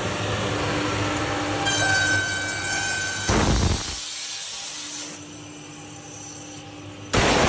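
Automatic edge banding machine running: a steady motor hum, a high whine for about a second and a half, and two short, loud bursts of noise about four seconds apart.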